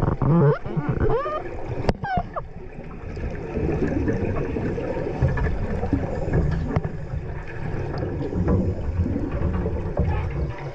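Underwater water noise: a steady low rumbling, gurgling wash. In the first couple of seconds a few squeaky whistles glide up and down in pitch.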